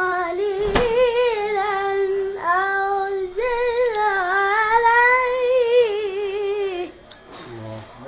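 A boy's high voice chanting in the melodic style of Quran recitation: long held notes with quavering ornaments in a few drawn-out phrases, stopping about seven seconds in.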